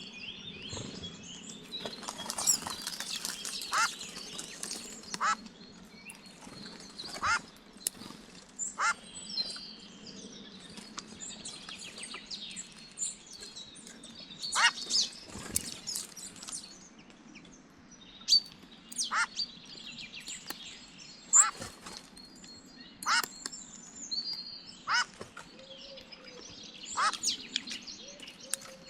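Wild birds calling: a steady run of short, sharp calls and chirps, one every second or two, with busier flurries of calls about two to four seconds in and again around fifteen seconds in.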